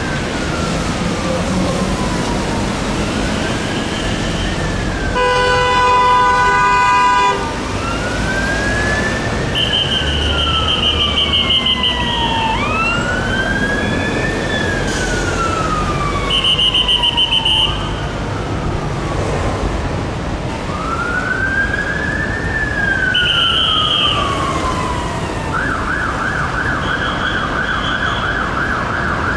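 Police escort sirens wailing, sweeping slowly up and down every few seconds over passing traffic, with short pulsing high tones cutting in several times. A vehicle horn sounds for about two seconds around five seconds in. Near the end the siren switches to a fast yelp.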